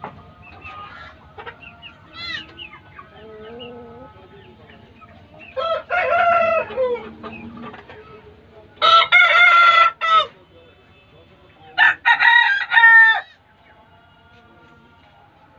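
Aseel roosters crowing three times, each crow about a second and a half long, with quieter clucking and calls from the flock in the first few seconds.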